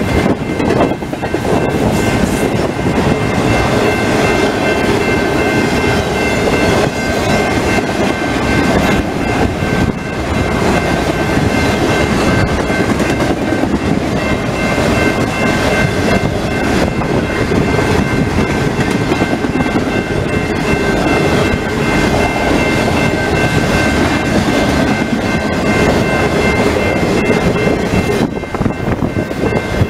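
Intermodal freight train of trailer-on-flatcar cars rolling steadily past at close range: a continuous rumble and clatter of wheels on the rails. A few steady high-pitched tones sound above it throughout.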